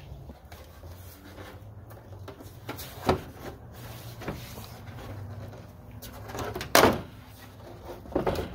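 Plastic headlight and corner-lamp assembly of an early 1997 Ford F-150 being worked loose from its mount by hand. It gives a few sharp clicks and knocks, one about three seconds in and the loudest near seven seconds, over a steady low hum.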